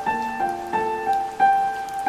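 A soft piano melody, single notes struck about twice a second and left ringing, over a steady hiss of rain with faint patter of drops.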